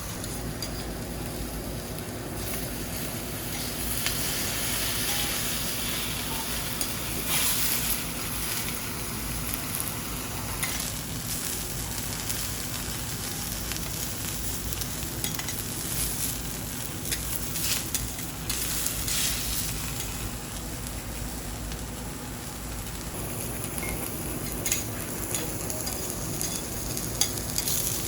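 Food sizzling on a hot teppanyaki iron griddle: a steady frying hiss that swells louder several times, with a few light clicks.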